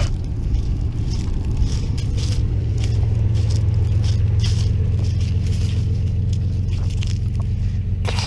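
Footsteps crunching on dry leaves and pine straw at a walking pace, about one step every second or less, over a steady low rumble.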